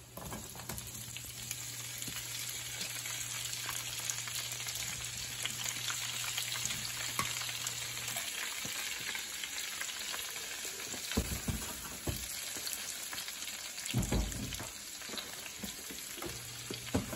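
Blanched green beans frying in hot olive oil and butter with garlic: a steady sizzle with fine crackling as they go into the pan. Two dull knocks sound in the second half.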